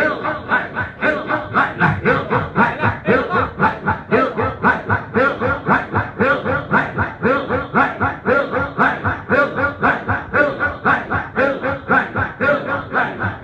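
A group of men chanting dhikr in unison, short repeated syllables in a fast, steady rhythm of about four a second.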